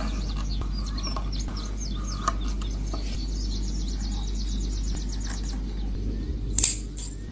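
Steady low hum with a run of rapid high chirps over the first few seconds, then one sharp snip near the end: small scissors cutting the stitching thread on a leather watch strap.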